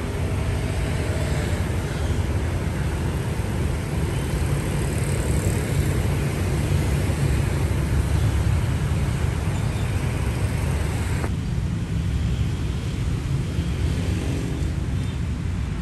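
Steady outdoor city ambience: a low rumble of road traffic under a hiss that drops suddenly about eleven seconds in.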